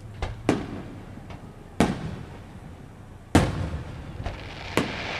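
Aerial firework shells bursting overhead: a string of separate booms a second or so apart, the loudest about three and a half seconds in. A steady hiss starts near the end.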